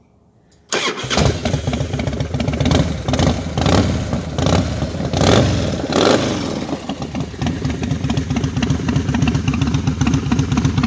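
A 2000 Harley-Davidson Heritage Softail Classic's air-cooled V-twin, bored out to 95 cubic inches with 203 cams and running through Vance & Hines Big Shot exhaust, starts up suddenly about a second in. It is revved with a string of throttle blips, then settles into a steady idle.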